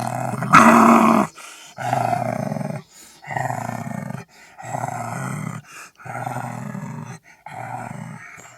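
Wolf growling: a loud snarl about a second in, then a run of five shorter growls at roughly one a second, with short pauses between them.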